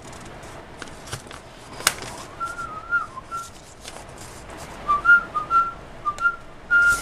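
A person whistling a tune, two short phrases of quick wavering notes starting a couple of seconds in, over a few sharp clicks from parts being handled, the loudest just before the whistling starts.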